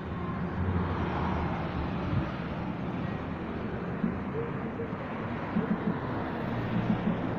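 Road traffic going by: a steady rumble of passing vehicles, swelling about a second in.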